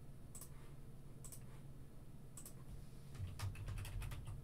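Computer keyboard clicking, faint: a few separate clicks, then a quick run of keystrokes near the end as text is typed.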